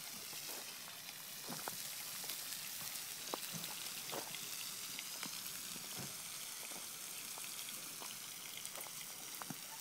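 Steady hiss with scattered light clicks and taps of chopsticks, plates and plastic cups being handled while eating.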